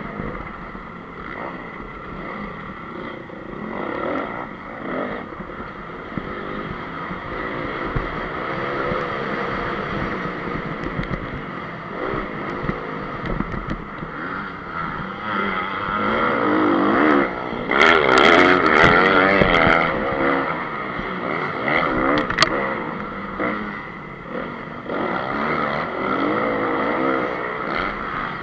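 2014 Honda CRF250 single-cylinder four-stroke motocross engine, heard up close from on board, revving up and down as the rider opens and closes the throttle through the track's turns. The loudest stretch of hard throttle comes about two-thirds of the way through, with a few sharp cracks.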